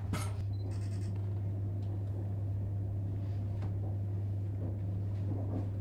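Steady low hum inside a railway passenger coach, with a brief hiss about a second in.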